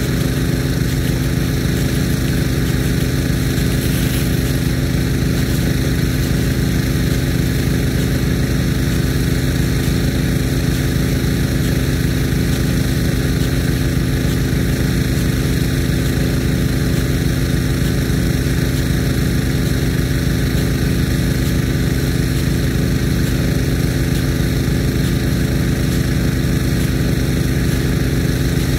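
Irrigation pumps running steadily with a constant pitched hum, under the hiss of water jetting from a Nelson P150 big gun sprinkler.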